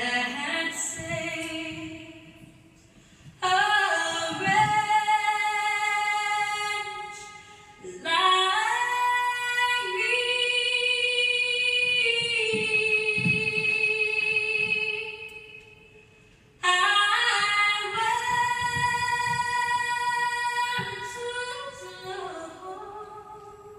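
A slow song with a female singer holding long notes, in four phrases with short gaps between them, played in a studio room.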